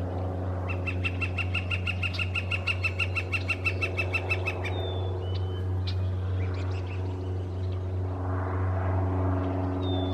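Red-shafted northern flicker giving its song, a long, rapid, even series of loud 'wik-wik-wik' notes, about six or seven a second, lasting some four seconds. Brief high whistles from another bird and a steady low rumble sit underneath.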